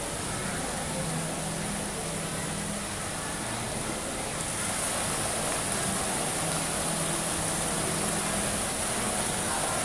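Fountain water jets splashing into the pool, a steady rushing spray. It grows louder and hissier about four and a half seconds in, as arching jets start up.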